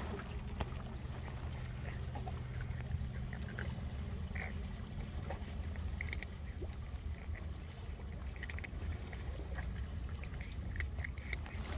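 Cats crunching dry kibble: scattered short, crisp crackles of chewing over a steady low background rumble.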